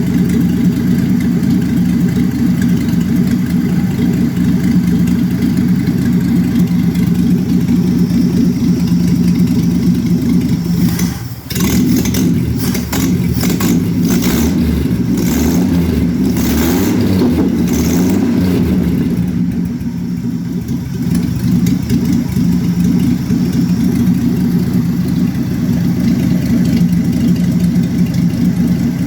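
1966 Chevrolet Impala's 250 cubic inch inline-six running at a rough idle, the fault the owner is asking about. About a third of the way in it dips briefly, then irregular sharp rattling noises come over it for several seconds before the steady running returns.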